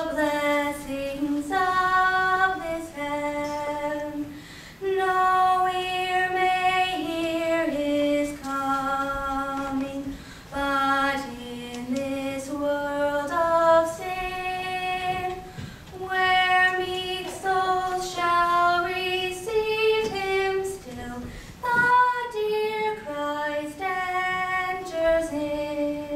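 A girl's solo voice singing a slow Christmas carol, holding each note about a second before stepping to the next.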